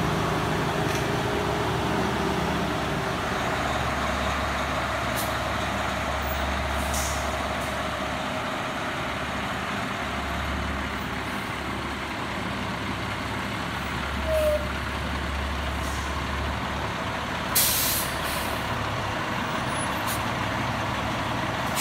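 Fire trucks' diesel engines running as a fire engine and a Pierce heavy-rescue truck pull forward, the low rumble swelling now and then. Several short air-brake hisses, the loudest about seventeen seconds in.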